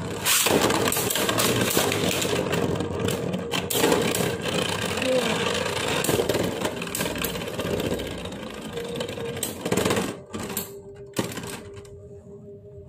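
Two Beyblade Burst tops, Z-Achilles and Winning Valkyrie, spinning and clashing in a B-33 plastic Bey Stadium: rapid clattering and scraping over a steady whir. The clatter dies down about ten seconds in, and a faint whir goes on near the end.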